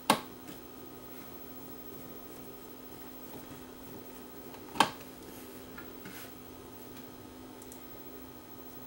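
Two sharp mechanical clicks about five seconds apart from the switch and solenoid mechanism inside a Technics RS-676 cassette deck, worked by hand while the switch action is checked, over a steady low hum.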